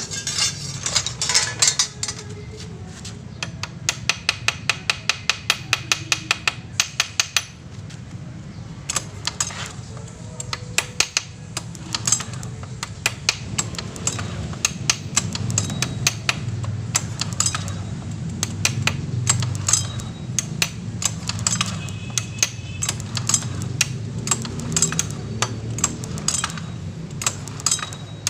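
Hand tools clicking and tapping on metal: a run of fast, even clicks, about seven a second, from about four seconds in to halfway through, then scattered clicks and taps, over a low steady hum.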